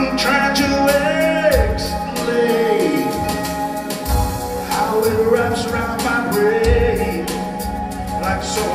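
Live blues band playing. Keyboard and drums back a lead melody line that slides and wavers in pitch.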